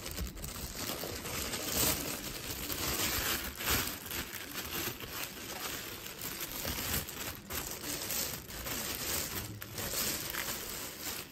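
A clear plastic bag crinkling and rustling as it is pulled off a camera by hand, with a constant run of small irregular crackles.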